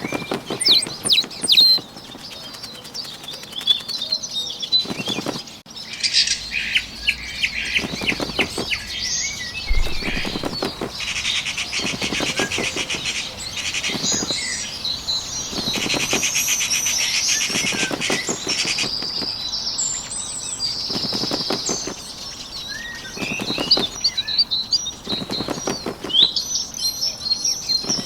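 Sound effect of a small bird's wings fluttering in short runs every two or three seconds, over a steady background of birds chirping and singing.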